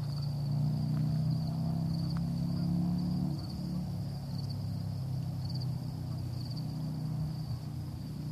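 A low, steady engine-like hum, louder for the first three seconds and then easing off, under a continuous high, pulsing chirp of insects.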